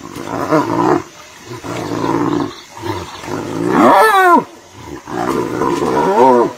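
Two spotted hyenas fighting, growling in four loud bouts. About four seconds in one gives a high cry that slides steeply down in pitch, and another pitched cry rises and falls near the end.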